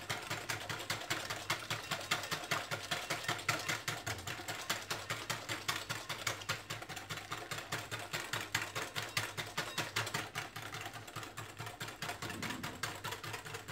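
Whisk beating fast against a glass bowl in a quick, even rhythm of clicks and scrapes, several strokes a second. The egg yolks and sugar are being tempered: hot lemon juice is added while they are whisked constantly so the eggs don't cook.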